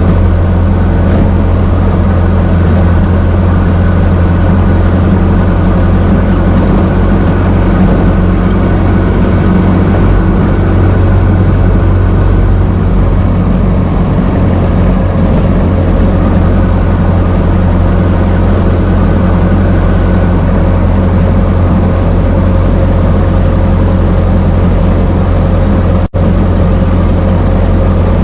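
Old car's engine running steadily with a deep, even hum, without revving. Near the end it cuts out for a split second and resumes.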